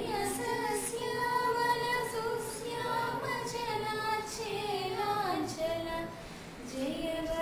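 A small group of young women singing a song together, unaccompanied, in long held notes, with a short break for breath about six seconds in.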